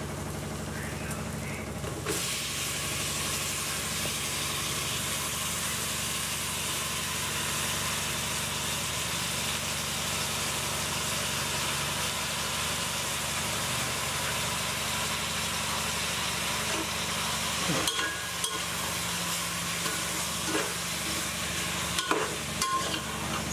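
Chopped tomatoes sizzling in hot ghee in a cooking pot, with a steady hiss that starts about two seconds in over a low steady hum. A few spoon knocks against the pot near the end as the tomatoes are stirred.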